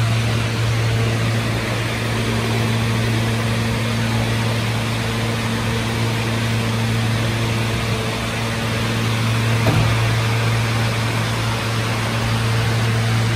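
Inside an R160B New York City subway car under way: a steady rumble of wheels on rail with a constant low hum. There is one brief knock about ten seconds in.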